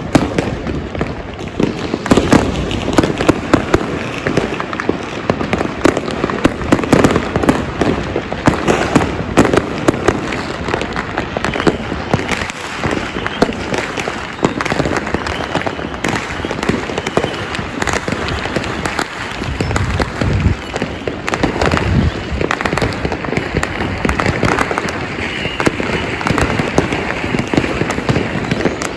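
Many fireworks and firecrackers going off at once: a dense, irregular stream of bangs and crackling, with louder booms standing out here and there.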